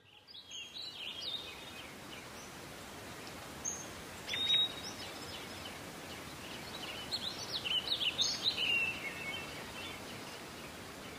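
Wild birds chirping and singing in short high phrases over a steady outdoor hiss. Bursts of song come near the start, once around the middle, and most busily a couple of seconds later.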